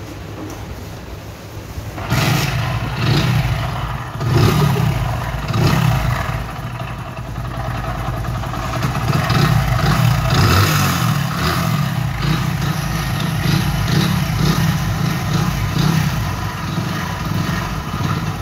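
Hero Splendor Pro's 100 cc single-cylinder four-stroke engine starts about two seconds in, is revved in a few surges, then keeps running noisily. The mechanic puts the heavy noise down to a failed crankshaft with worn crank bearings, which has also seized the bore.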